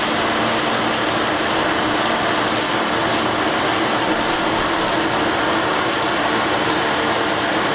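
Railway track maintenance machine running steadily, an engine hum with several steady tones over a constant hiss.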